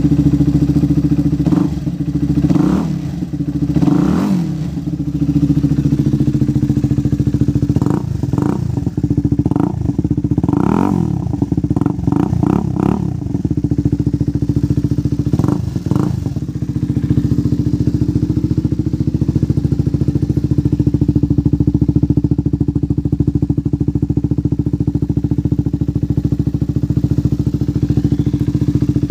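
Motorcycle engine running through an aftermarket SC Project exhaust. It idles with a string of short throttle blips in roughly the first sixteen seconds, then settles into a steady idle.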